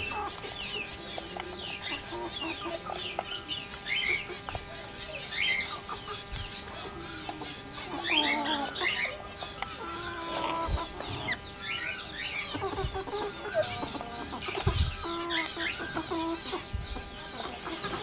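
Rose-ringed parakeets chattering with many rapid high chirps, mixed with hens clucking.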